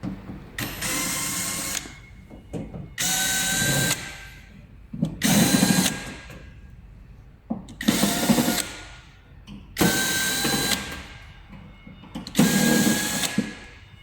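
Electric fireplace running on its flame effect alone, with the heater off, making a harsh whirring, grinding noise. It comes in six bursts of about a second each, roughly every two seconds, each with a whine on top and fading away. With the heater off, the noise points at the flame-effect motor that turns the flicker rod.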